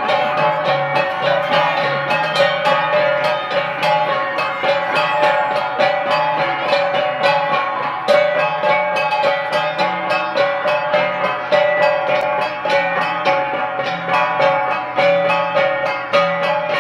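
Ensemble of gangsa, flat bronze Cordillera gongs, struck in a fast, steady interlocking rhythm, their metallic tones ringing over one another, accompanying a tadek dance.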